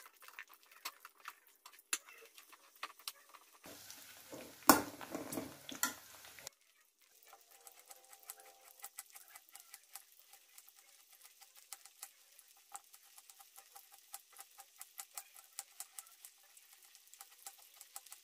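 Knife slicing a red onion thinly on a wooden chopping board: a long run of light, even taps, about four a second. Before it come a few scattered knocks, with one loud knock about five seconds in.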